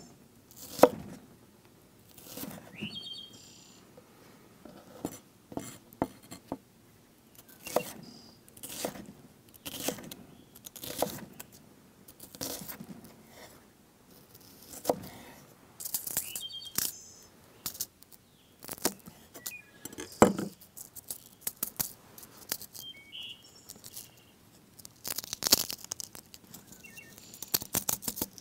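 Irregular clinks, knocks and scrapes of cooking gear being handled, about one every second, with a busier clatter near the end and a few brief high chirps.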